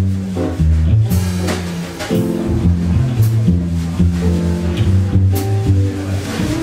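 Jazz double bass played pizzicato, a line of single plucked low notes leading the music, with occasional cymbal strokes behind it.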